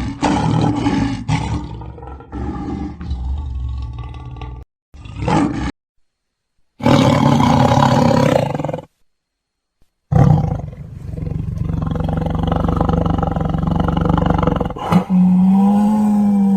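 A series of large carnivore roars and growls from separate recordings, joined with abrupt cuts and short silent gaps, ending in one long, steady, deep call.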